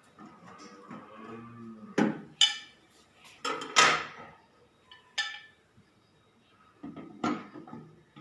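Metal clinks and rattles as a microwave convection oven's accessories, the metal grill rack and its tray, are handled and set in place. There are about five sharp clinks with a brief ring, the loudest a little before the middle.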